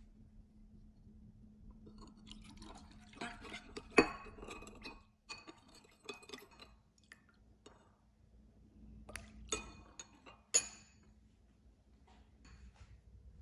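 Kitchen utensils and glass or ceramic dishes clinking and knocking during food preparation: a run of small knocks and clinks, loudest about four seconds in, then a few sharp clinks about nine to eleven seconds in.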